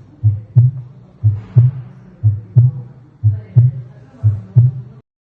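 Human heart sounds heard through a stethoscope at Erb's point: paired lub-dub beats (first and second heart sounds), about one cycle a second. The recording cuts off suddenly near the end.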